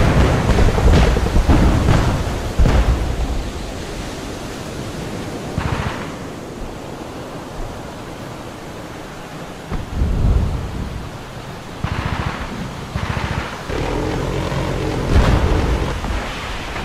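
Sound-effect battlefield ambience: distant explosions rumbling and booming over a steady low rumble. The booms are heaviest and most frequent in the first three seconds, with further single booms about ten, twelve, thirteen and fifteen seconds in.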